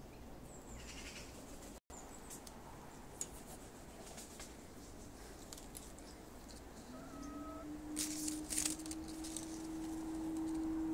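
Faint rustling and clicks of fig leaves and branches being handled, sharpest about 8 seconds in. About 7 seconds in, a steady low humming tone begins, rises slightly, then holds level and grows louder than the rustling.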